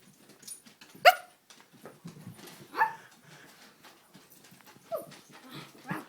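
Pet dogs barking while playing: four short, sharp barks, the loudest about a second in, with fainter scuffling between them.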